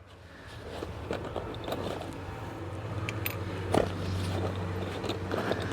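A steady low machine hum that builds up over the first second, with scattered light clicks and a sharper knock a little past the middle.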